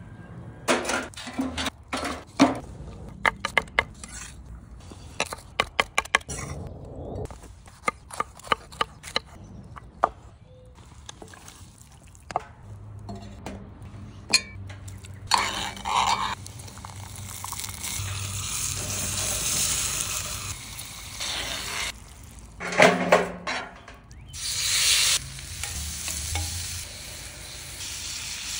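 A metal utensil clinks and taps sharply against a small cast-iron pot, many times over the first several seconds. After that, butter and shrimp sizzle steadily on hot metal over a wood fire, with a few louder surges of sizzling.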